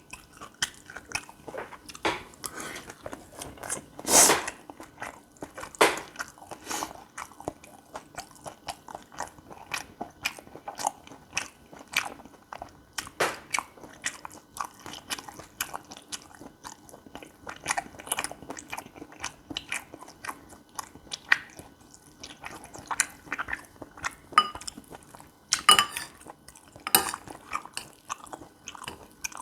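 Close-miked chewing and biting of gopchang fried rice: a dense, continuous run of small wet mouth clicks, with a few louder bites standing out, the loudest about four seconds in.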